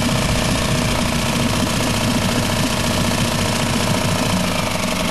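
Tohatsu MFS-3.5A four-stroke outboard idling steadily, freshly started from cold and still warming up.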